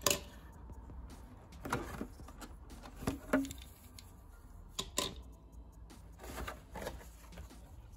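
Handling noise from a clear plastic blister tray crinkling and clicking in the hands, with small diecast cars set down on a wooden table, in a string of separate clicks and taps.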